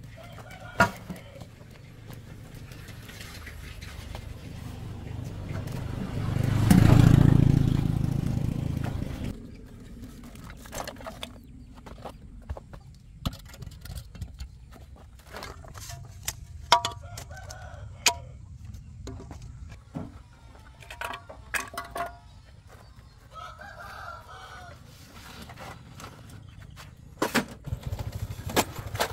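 Chickens clucking and a rooster crowing, with scattered knocks and clatter. A vehicle engine passes, swelling and fading about six to nine seconds in; it is the loudest sound.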